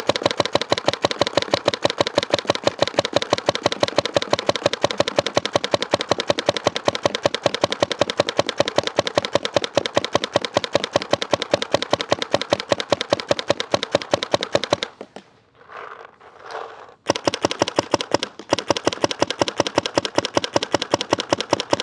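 GOG eNMEy mechanical paintball marker, run on a compressed-air tank, firing a long rapid string of shots as fast as the trigger can be pulled. The string stops for about two seconds roughly two-thirds of the way through, then the rapid firing starts again.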